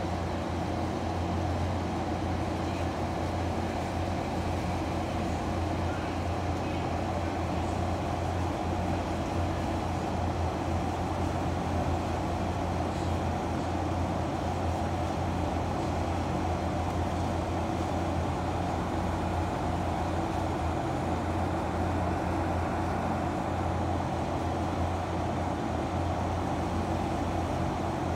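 Steady low machine hum with no change in pitch or level.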